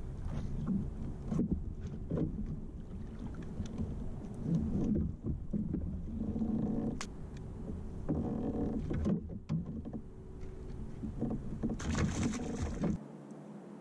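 Knocks, clicks and handling noise on a plastic fishing kayak as a bass is fought and brought to the landing net, over a low rumble that cuts off sharply near the end.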